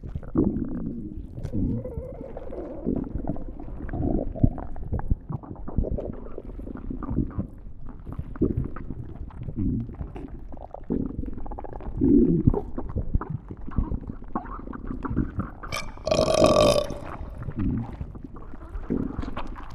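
Stomach growling and gurgling, a near-continuous run of short, irregular low rumbles. About sixteen seconds in comes one louder, higher-pitched, squealing growl lasting under a second.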